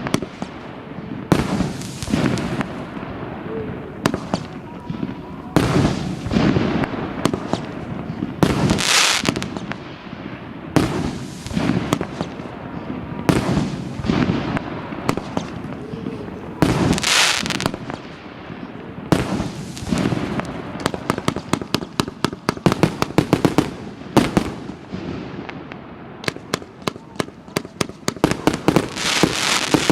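A 228-shot firework cake of 30 and 50 mm calibre tubes firing, its shells launching and bursting in quick succession. From about 20 seconds in, the shots come as a rapid string of sharp bangs.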